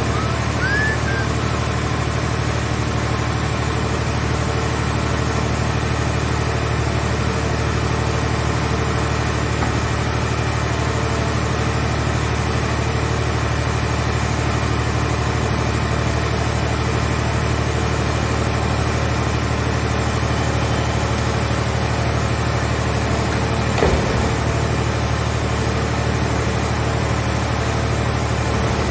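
Engine of a car-shell baler running steadily, with a single clank late on.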